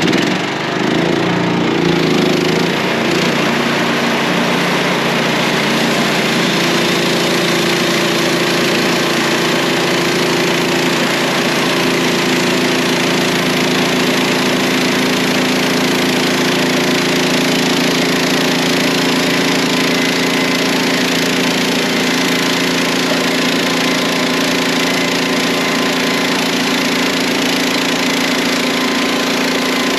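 Wood-Mizer portable band sawmill running under load as its blade saws a one-inch board from a log: a steady engine note with a dense hiss of cutting over it, settling to an even pitch after the first two seconds.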